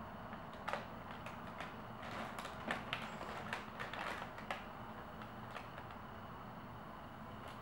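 Crumpled brown packing paper crinkling and crackling in irregular bursts as a cat steps and paws on it, settling down after about four and a half seconds.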